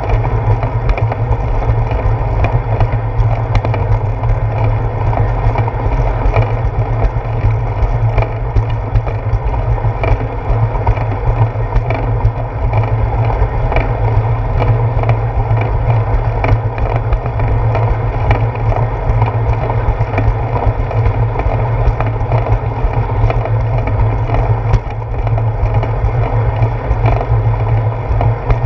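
Bicycle rolling over a concrete sidewalk, heard through a handlebar-mounted camera: a steady loud rumble of tyre and road vibration with many small ticks and knocks from bumps and joints in the pavement.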